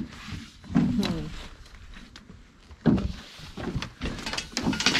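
A person's voice in short wordless sounds, with scattered knocks and scuffing from handling.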